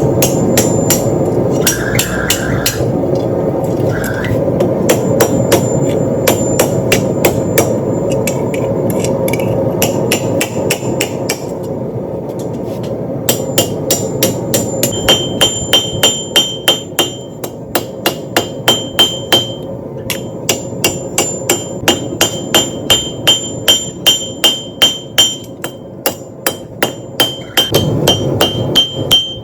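Hand hammer striking a quarter-inch steel bar on an anvil, a steady rhythm of about three blows a second as the bar is forged and peened. A steady low roar runs underneath for the first half; from about halfway on, each blow rings with a high, clear tone.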